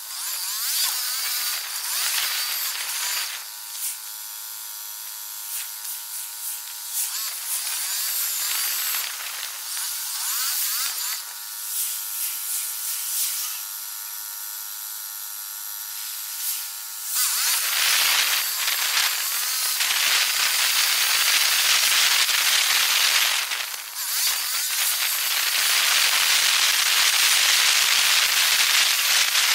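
Road and wind noise from a ride, played back ten times fast, so it comes out as a high-pitched hiss. Twice it drops back and steady buzzing tones come through for a few seconds, and from a little past halfway the hiss grows louder and fuller.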